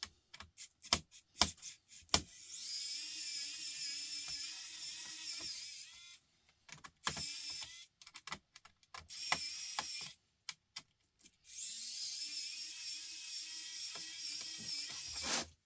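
Small electric screwdriver whining in several runs, two of them about four seconds long, as it backs screws out of a laptop case, with sharp clicks of metal parts being handled in the pauses.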